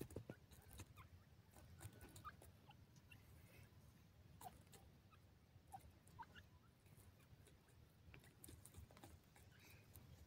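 Near silence: grey francolins pecking and scratching at dry, sandy soil, heard as faint scattered ticks and clicks, with a few soft short chirps over a low steady rumble.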